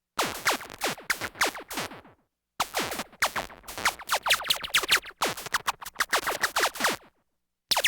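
Synthesised sci-fi laser blaster fire: rapid volleys of short zaps, each a quick falling tone. One volley of about two seconds, a brief pause, then a longer volley that stops about a second before the end.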